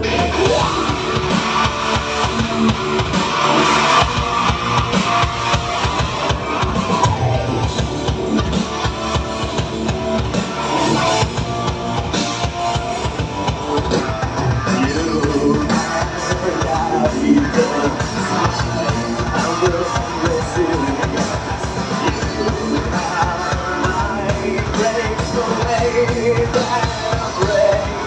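Live rock band playing loud and without a break: a drum kit keeps a steady beat under guitars and singing.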